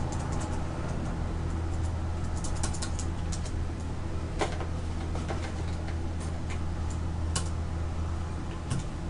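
Computer keyboard keys clicking one at a time, a few seconds apart, over a steady low hum.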